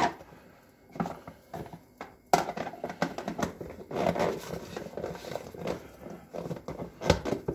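Plastic food container handled on a wooden chopping board: its lid pressed down and clicked shut, with scattered knocks of plastic on wood and crinkly rustling, the sharpest knock about two seconds in.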